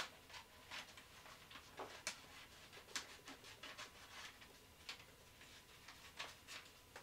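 Near silence: room tone with faint, irregular small clicks and rustles.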